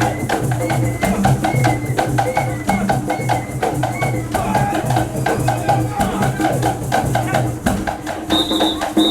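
Music with a steady, fast beat of hand percussion and pitched instruments.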